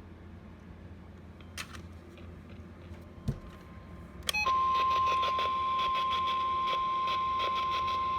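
Faint radio static with a couple of clicks, then about four and a half seconds in a loud, steady single-pitch alert tone comes on and holds over crackling static. This is the NOAA Weather Radio 1050 Hz warning alarm tone, sent as part of a required weekly test.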